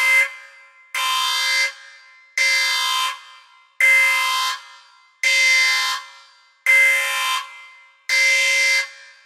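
Spaceship-style electronic alarm sound effect going off as the timer runs out: a steady blast of several pitches at once, about three-quarters of a second long with a short fading tail, repeated about every 1.4 seconds, seven times.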